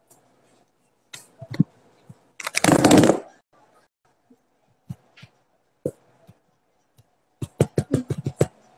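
Handling noise from a smartphone held close to its microphone: scattered knocks, a loud rustle lasting about a second near the start, and a quick run of about ten taps near the end.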